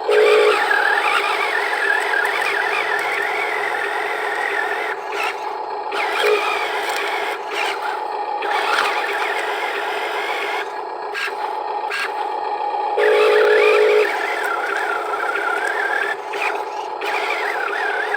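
Electric motors and plastic gearboxes of a Huina RC construction vehicle whining as it works, the pitch wavering up and down with the load. A louder, steady buzzing from another motor comes in briefly at the start and again for about a second near the end.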